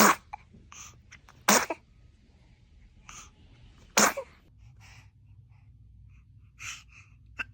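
Newborn baby sneezing three times, each a short sharp sneeze, the second about a second and a half after the first and the third about two and a half seconds later, with fainter small sounds between them.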